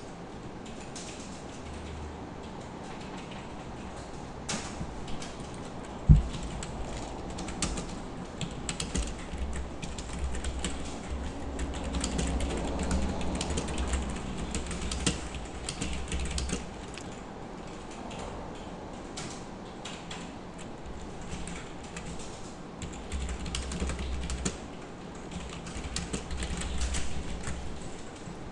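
Typing on a computer keyboard: key clicks in irregular runs, with one sharp louder thump about six seconds in.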